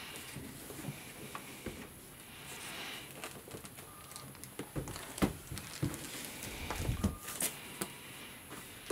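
Cardboard box being handled and turned over on a wooden table: scattered taps, scrapes and light thumps, the loudest about five and seven seconds in.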